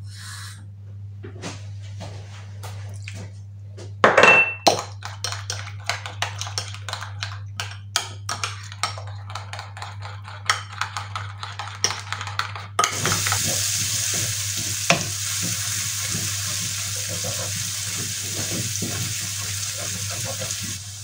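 A spoon clinks and scrapes against a small ceramic bowl as a soy-sauce and paprika paste is stirred with a splash of water, with a louder clatter about four seconds in. About thirteen seconds in it cuts to a steady sizzle of diced onion frying in oil in a non-stick pan, with light taps of a wooden spatula stirring.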